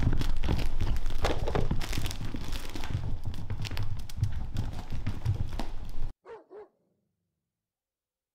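Weimaraner puppies play-fighting on blankets: a busy mix of rustling, scuffling and knocks with short yips. It cuts off abruptly about six seconds in. Two quick barks follow.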